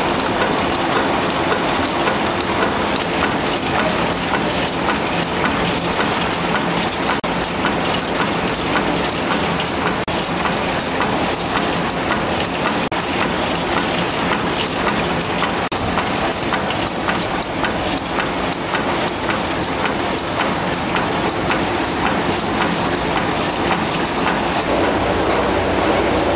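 Reel-to-pack converter, a web-fed continuous stationery printing press, running at speed: a steady, dense mechanical clatter full of rapid fine ticking.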